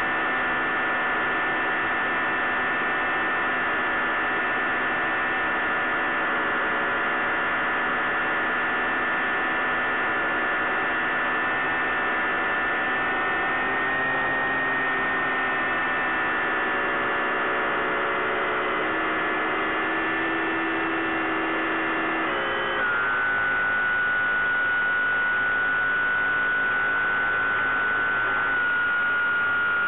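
Bix3 RC plane's electric motor and pusher propeller in flight, a steady hum heard on the plane's onboard FPV audio. Its pitch steps down about three-quarters of the way through, where the hum gets a little louder.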